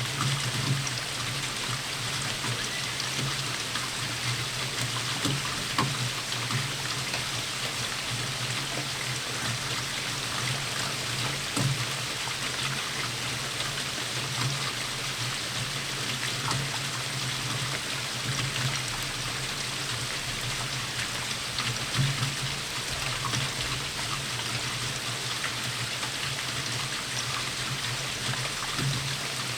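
Steady rainfall: an even hiss, with a scattered patter of louder drops and drips landing close by.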